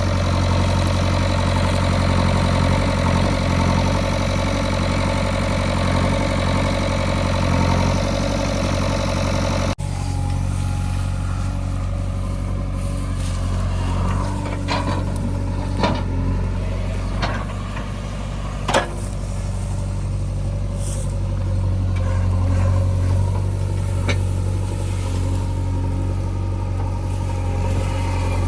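Heavy diesel machinery engine running steadily. About ten seconds in the sound cuts abruptly and the engine carries on a little quieter, with several short, sharp knocks.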